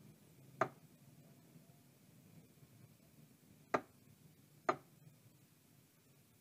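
Three short sharp clicks, one about half a second in and two close together near four seconds in: the front-panel push buttons of a Polytron LED TV being pressed.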